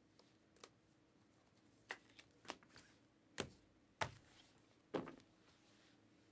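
Faint handling of trading cards and a rigid plastic top loader: about six short, sharp clicks and rustles spread over a few seconds.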